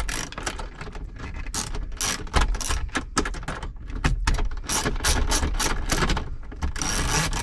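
Hand ratchet clicking in several quick runs of rapid clicks as it loosens an 8 mm bolt.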